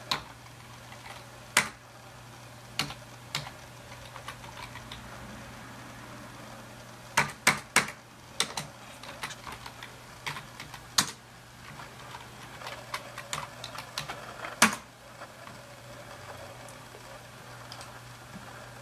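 Computer keyboard typing: scattered key clicks, some in quick runs of three or four, over a faint steady low hum.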